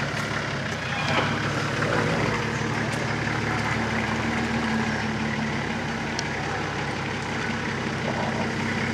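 Nissan GQ Patrol 4WD's engine running steadily at low revs as it crawls through a muddy rut, picking up slightly about a second in.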